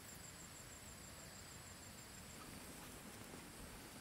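Near silence: faint, steady outdoor background hiss with no distinct sound events.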